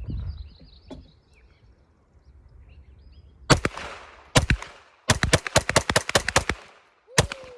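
Glock 48 9mm pistol firing: two single shots, then a fast string of about ten shots, then one more near the end.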